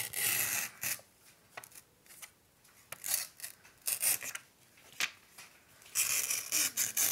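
A sheet of paper being torn along the edge of a plastic ruler, in several tearing pulls: a long one at the start, short ones in the middle, and another long one near the end.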